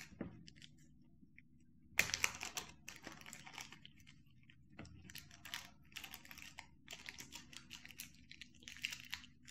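A small clear plastic bag of spare stylus nibs crinkling and rustling in the fingers in short bursts with light clicks, starting about two seconds in.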